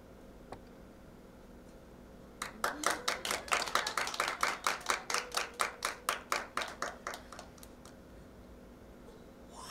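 Sharp handclaps at about four a second, starting about two and a half seconds in and dying away about five seconds later.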